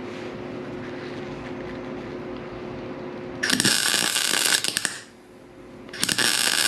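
Wire-feed welder arc crackling in two short welds on sheet steel, each lasting a second or so, over a steady hum. The wire speed has been turned down slightly to stop little buildups forming at the ends of the welds.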